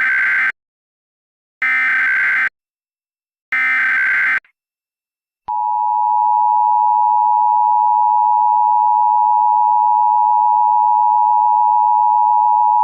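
Emergency Alert System tones: three short bursts of the SAME digital header data, each about a second long with a second's gap between them. Then, from about five and a half seconds in, the steady two-tone EAS attention signal (853 and 960 Hz) sounds continuously.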